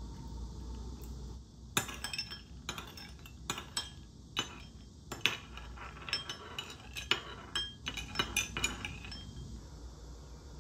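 Metal spoon stirring a soy-sauce mixture in a ceramic bowl, clinking irregularly against the bowl's sides and the chunks of rock sugar, from about two seconds in until shortly before the end. The stirring dissolves the rock sugar into the sauce.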